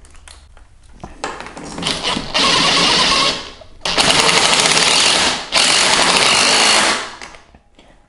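Cordless impact driver with a long 9/16 socket hammering in three runs of a second or more each, the second and third nearly back to back, as it drives the wheel bolts into a mobility scooter's hub.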